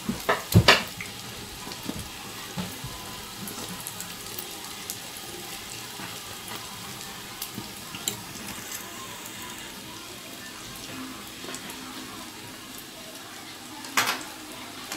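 Puff puff dough balls deep-frying in hot oil in a small frying pan, a steady sizzle throughout. A metal fork clicks against the pan a few times in the first second while turning them, and there is one louder knock near the end.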